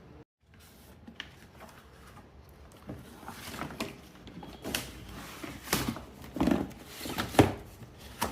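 Handling noise from a cardboard product box being picked up and moved: irregular rustles and short knocks that grow louder from about three seconds in, the loudest two near the end.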